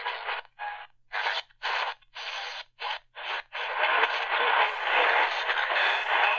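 Tecsun PL-380 portable radio's speaker as it is tuned up the AM medium wave band: short bursts of static and station audio broken by brief silences on each tuning step, then a steadier stretch of noisy AM reception on 570 kHz from about three and a half seconds in.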